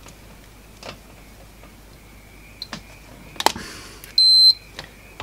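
Digital multimeter giving one short, high continuity beep a little after four seconds in, preceded by a few light clicks and knocks from the meter and test probes being handled.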